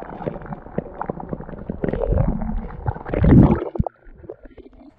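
Muffled underwater gurgling and bubbling with small knocks against the camera. It swells to a loud low rush about three seconds in, then drops away.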